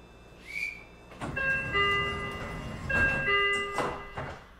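Train horn sounding: a short upward whistle, then two held blasts of several steady tones that shift pitch partway through, over a low rumble.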